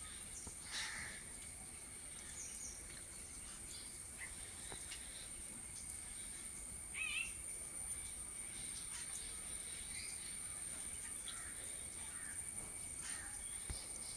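Scattered short bird calls over a steady high-pitched insect drone, the loudest a quick warbling chirp about seven seconds in.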